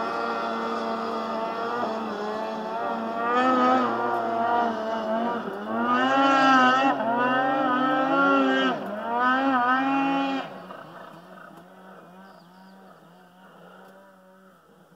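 Snowmobile engine climbing a steep snow slope. Its pitch rises and falls repeatedly as the throttle is worked between about 3 and 10 seconds in. The sound then fades away as the machine tops the hill and drops out of hearing.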